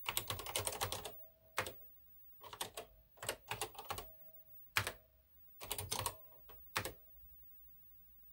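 Typing on the NASCOM computer's keyboard: quick runs of key clicks in several bursts with short pauses between them as commands are entered.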